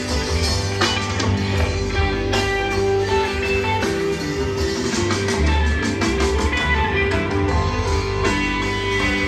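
Live rock band playing through a large outdoor PA, heard from within the audience, with guitar prominent over steady bass and drums.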